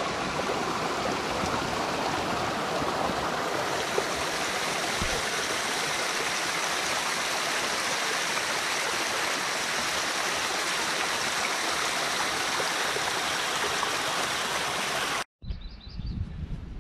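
Small mountain stream cascading over rocks: a steady rush of running water that cuts off abruptly about fifteen seconds in, followed by a quieter low rumble.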